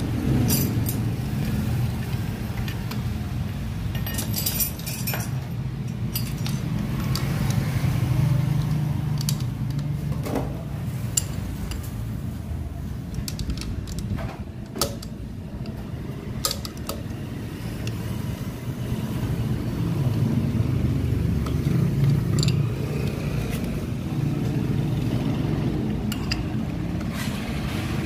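Scattered metal clicks and clinks of a box wrench and flywheel holder on the flywheel nut of a Honda TMX's contact-point magneto as the nut is tightened, over a steady low rumble.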